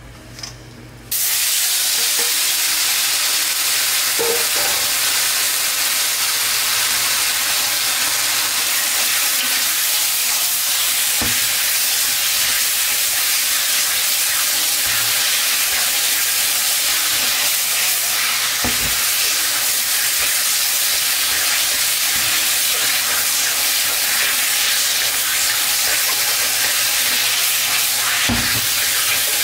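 Marinated chicken pieces go into a smoking-hot, oiled wok about a second in and set off a loud, steady sizzle as they fry. A wooden spatula stirs them, knocking against the pan a few times.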